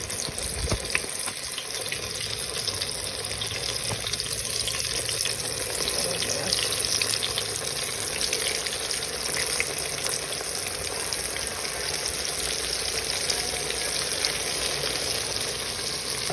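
Small battered bream (bluegill) pan-frying in hot grease: a steady sizzle with many small crackling pops.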